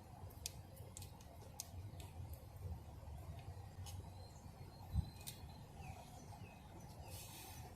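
Faint scattered clicks with a few short high chirps, a single low thump about five seconds in, and a brief hiss near the end.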